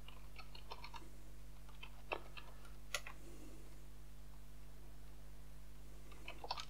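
Faint computer keyboard keystrokes: a few quick taps, two single stronger key presses about two and three seconds in, then a pause and a short burst of typing near the end, over a steady low hum.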